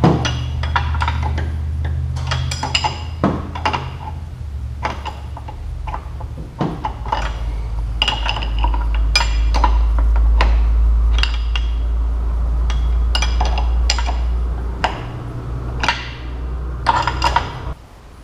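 Steel open-end wrenches clinking and tapping against the steel hydraulic hose fittings and valve tee of a front loader as the fittings are wrenched tight, in many short, irregular metallic clicks.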